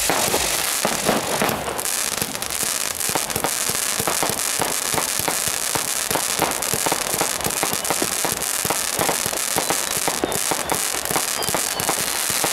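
Aerial fireworks going off in quick succession: a dense, unbroken run of launches, pops and bangs, several a second.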